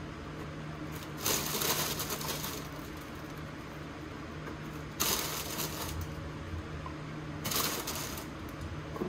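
Three short bursts of crinkly rustling, about a second in, midway and shortly before the end, as vanilla wafers are picked up by hand and set onto pudding in a ceramic dish. A steady low hum runs underneath.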